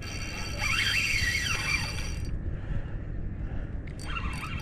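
Fishing reel whining under load while a hooked barramundi is fought: a high whine that rises and falls in pitch for about two seconds, stops, and starts again near the end.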